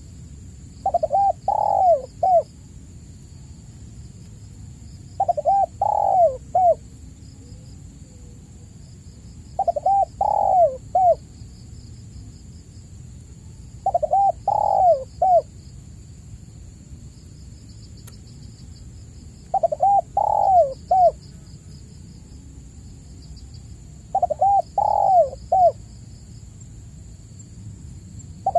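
Spotted dove cooing: a short phrase of three or four curved coo notes, repeated about every four to five seconds, seven times.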